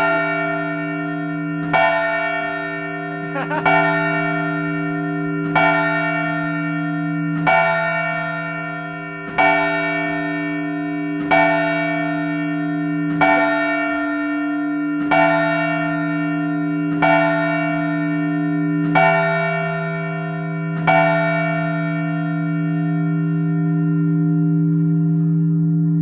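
Large bronze clock-tower bell striking the hour twelve times, about one stroke every two seconds, for noon. Each stroke is very loud, with a long humming ring that carries on after the last one.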